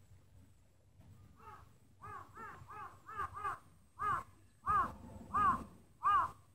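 A bird calling out of sight: a run of about ten short, clear calls that each rise and fall in pitch. They come quickly at first, then more slowly and louder toward the end.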